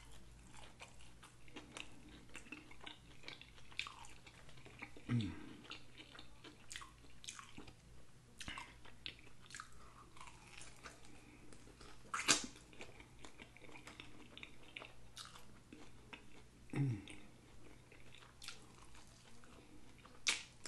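Close-miked chewing and wet lip-smacking of a person eating bone-in chicken wings, with sharp mouth clicks throughout, the loudest about twelve seconds in and near the end. Two brief low voice sounds from the eater, about five seconds in and again about seventeen seconds in.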